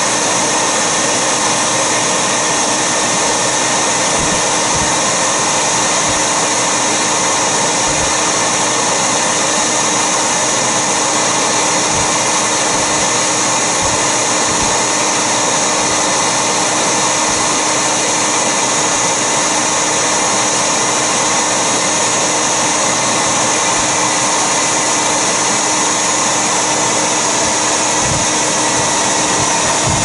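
Bee vacuum running steadily, its suction motor drawing honey bees off a glove into the hose, with a few soft low knocks from handling.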